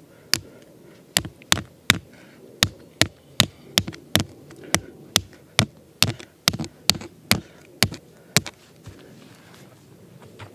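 A tent peg being pounded into the ground with a rock used as a hammer: about eighteen sharp knocks at roughly two a second, stopping about two seconds before the end.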